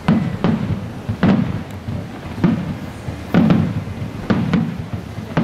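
Aerial firework shells bursting in quick succession, about eight to ten loud bangs spaced half a second to a second apart, each trailing off in a rumble.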